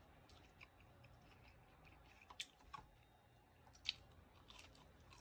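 Faint close-up chewing and eating mouth sounds, with scattered sharp crunchy clicks, the loudest about four seconds in.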